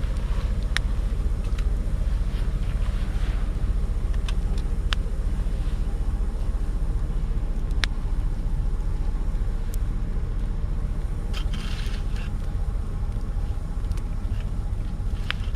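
Campfire of branches and driftwood burning in a fire pit, crackling with sharp irregular pops, with a short hiss about eleven seconds in. A steady low rumble runs underneath.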